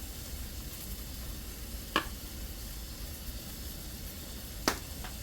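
Chicken pieces sizzling steadily as they fry in a pan, with two sharp clicks, one about two seconds in and a louder one near the end.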